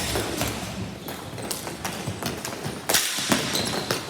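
Ball hockey in play: sticks and the ball clattering, with a run of short knocks and a louder thump about three seconds in.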